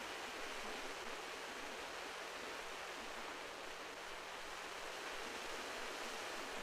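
Steady, even wash of sea surf along the shore, with no distinct breaking waves.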